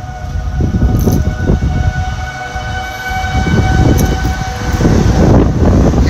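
Outdoor tornado warning siren sounding a steady chord of several held tones, the alert for a tornado warning, over a heavy low rumble. The tones die away near the end.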